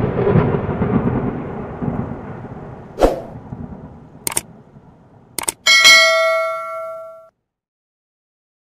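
Intro sound effects: a rumbling whoosh that fades away, then a few sharp mouse clicks, then a bell-like notification chime ringing out a little after the middle, as for a subscribe-button click and bell.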